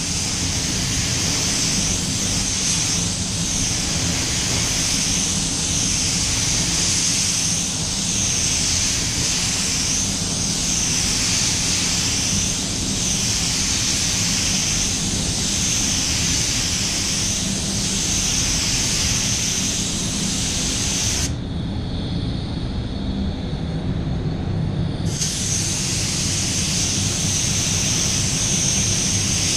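Compressed air hissing through a gravity-feed spray gun laying clearcoat onto a car bonnet, the hiss swelling and fading with each pass about every two and a half seconds. Under it is the steady low rumble of the spray booth's ventilation. Past the two-thirds mark the trigger is let off for about four seconds and only the rumble remains.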